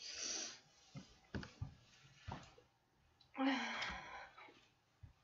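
A woman yawning: a breathy intake at the start, then a longer breathy exhale with a low voiced sigh about three and a half seconds in, with a few soft knocks between.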